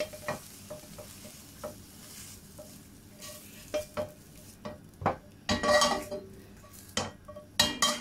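Silicone spatula tapping and scraping in a non-stick pan as scrambled egg is pushed out, over a faint sizzle of hot oil. A louder, longer scrape comes about two thirds of the way in, and a couple of sharp knocks come near the end.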